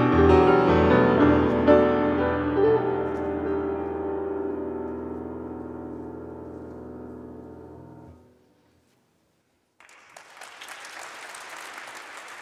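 Final chord of an electric guitar and grand piano jazz duo ringing out and slowly fading until it drops away. After about a second and a half of silence, audience applause begins.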